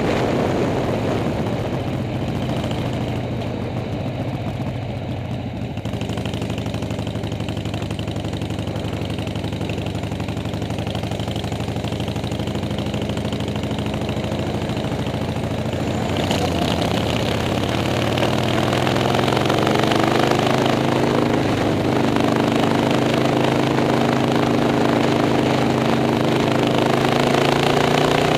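Motorcycle engine running under way, heard from the rider's seat with wind noise on the microphone. Its pitch holds steady, then rises over a few seconds in the second half as the bike accelerates, and stays higher to the end.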